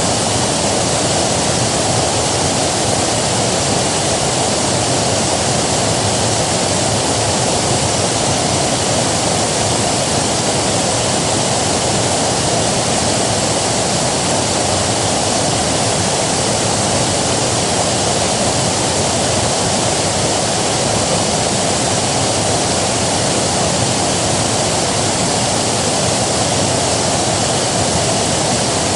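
River water rushing, a loud steady flow with no change.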